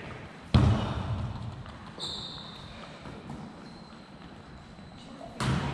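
A volleyball hit hard twice, about half a second in and again near the end. Each smack echoes around a large gym. A short high squeak sounds about two seconds in.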